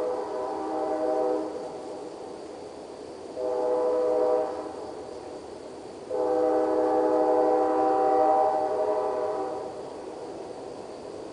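Freight train's locomotive horn sounding a chord of several notes: a blast that cuts off about a second and a half in, a short blast, then a long blast. This is the close of the long-long-short-long grade-crossing signal.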